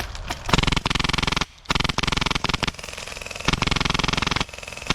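HPA-powered airsoft M249 (Polarstar Jack engine) firing full-auto, with a rapid, even clatter of shots. There are three bursts of about a second each, and a fourth starts at the very end.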